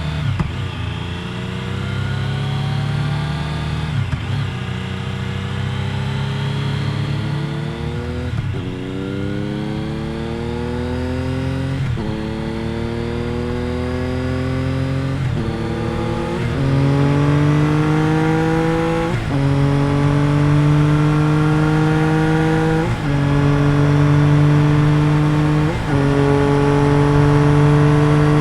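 Triumph Daytona 955i sports bike's 955cc three-cylinder four-stroke engine accelerating up through the gears. The pitch climbs, drops sharply at each upshift about every three to four seconds, then climbs again, and the engine gets louder in the later gears.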